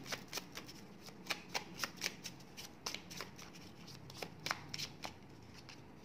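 A small deck of Rainbow oracle cards being shuffled by hand: a run of quick, irregular card flicks and clicks that thins out about five seconds in.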